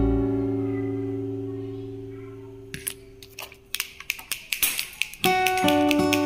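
Plucked guitar background music. A chord rings and fades, then comes a stretch of irregular clicks and rattles as the yellow toy spins, and plucked guitar notes start again about five seconds in.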